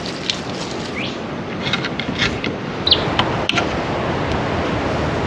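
Steady rushing outdoor background of wind and surf, with a few clicks of a knife on a wooden chopping board as salad vegetables are cut, sharpest about three and a half seconds in. A couple of short bird chirps about one and three seconds in.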